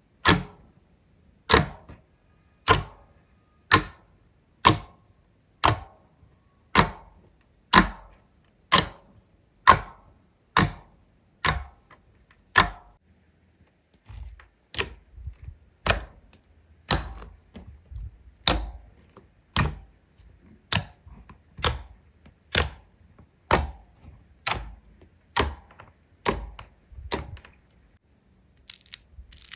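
Slime being worked by hand, giving a sharp, crisp pop about once a second, each one dying away quickly. From about halfway through the pops come slightly faster and softer over a faint low hum.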